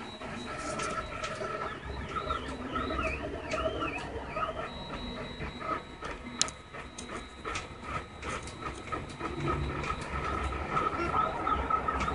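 Ultimaker 3D printer printing: its stepper motors whir in tones that rise and fall in quick repeated arcs as the print head moves back and forth, with scattered sharp ticks.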